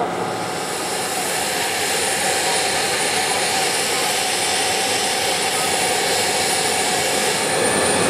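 Jet engine noise: a steady rush that slowly grows louder, with a thin high-pitched whine from about half a second in.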